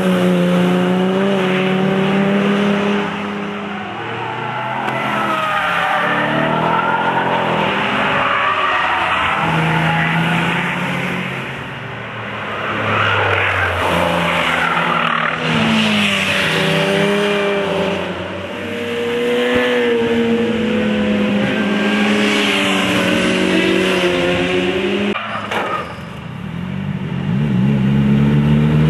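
Several track cars pass one after another through a tight corner, each engine note rising and falling as it brakes, downshifts and accelerates away. Tyres squeal as some cars slide through sideways.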